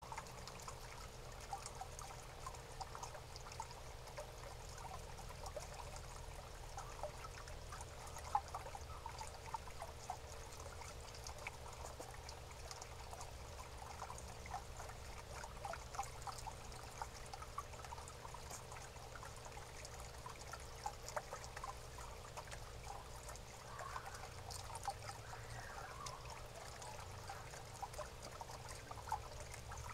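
Faint, irregular small clicks and rustles from a young striped skunk nosing and chewing through birdseed, over a steady low hum.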